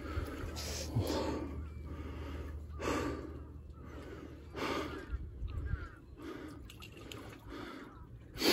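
A man breathing hard, several heavy breaths a second or two apart: out of breath from a hard fight with a big fish.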